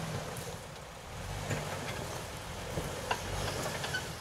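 Jeep engine running with a low rumble as it crawls over rocks, with scattered clicks and crunches of stone under the tyres.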